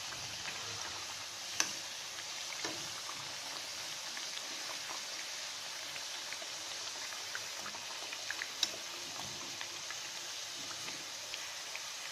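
Suhali (mathri) dough discs deep-frying on a low flame in a kadhai of hot oil, a steady sizzle. A metal slotted spoon clicks sharply against the pan twice, about a second and a half in and again past eight seconds.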